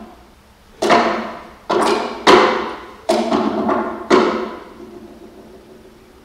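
Viola pizzicato: about half a dozen sharply plucked notes and chords, some in quick pairs, each ringing and fading. The last pluck comes about four seconds in and rings away.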